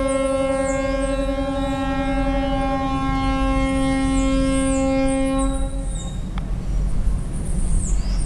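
Ship's horn sounding one long, steady blast, a single low note with a bright stack of overtones, that cuts off about six seconds in.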